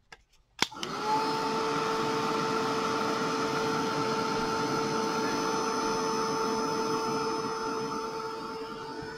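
Craft embossing heat tool switched on with a click about half a second in; its fan motor spins up and then blows steadily with a whining hum, easing slightly near the end.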